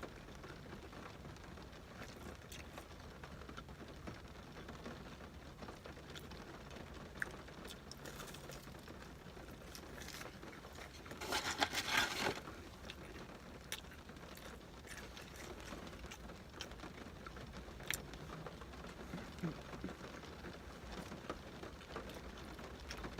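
Faint chewing and lip-smacking of someone eating, scattered small clicks, with a brief burst of paper rustling about halfway through.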